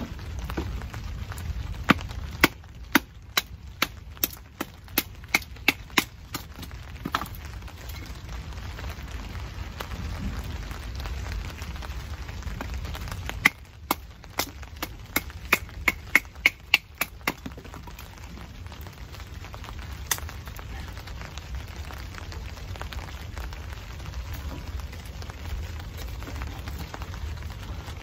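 Firewood being split by batoning: a wooden baton striking the spine of a knife driven through a log, two runs of sharp knocks at about two to three a second, then a single knock. Steady rain falls on the tarp overhead throughout.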